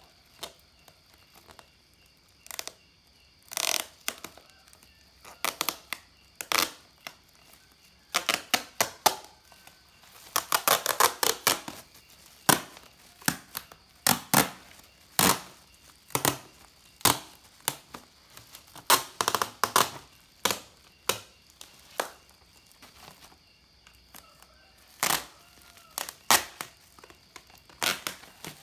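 Black plastic parcel wrapping crinkling and packing tape being peeled and torn off, in a string of sharp crackles and snaps, with a denser stretch of ripping about ten to twelve seconds in.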